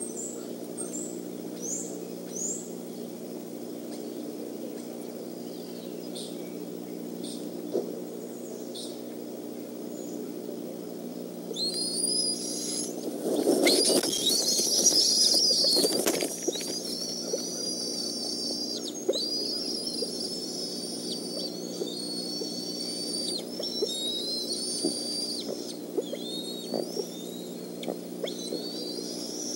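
Bald eagle eaglets giving high, piping begging calls that start about twelve seconds in and carry on, repeated rising and held notes, as an adult arrives with a fish. A loud burst of wing flapping and scuffling in the nest comes in the middle, over a steady low hum.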